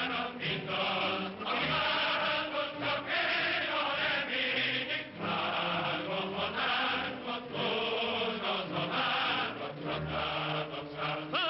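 A large operatic crowd chorus of many voices singing loudly together, in chant-like phrases broken by short pauses. The sound is thin and dull, from an old film soundtrack.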